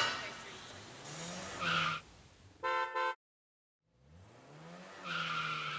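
Car sound effects for a segment transition: an engine revving up with a tyre skid, a short two-pulse horn toot near the middle, then another rising engine rev near the end.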